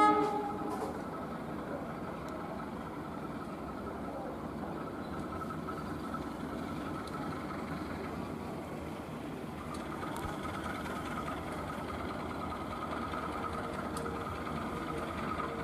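KAI CC206 diesel locomotive running steadily under load as it hauls a passenger train up a grade, its engine drone carrying a steady whine. A brief, loud, horn-like tone sounds right at the start.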